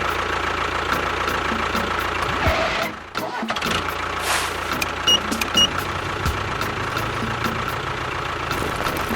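Steady engine running sound of a miniature DIY tractor-bulldozer, with a brief drop about three seconds in. Two short high beeps follow about halfway through.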